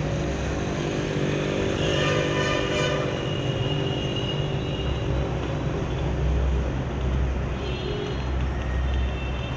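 Outdoor street ambience of motor vehicle engines running, with a deeper low rumble swelling from about five seconds in.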